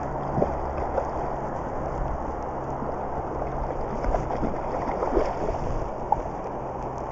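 A river running steadily, with a hooked Atlantic salmon splashing and thrashing in the shallow water at the bank as it is drawn in, a few sharp splashes standing out.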